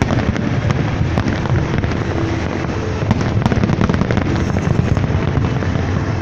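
Big aerial fireworks display going off continuously, a dense run of booming shell bursts and crackling, with no break.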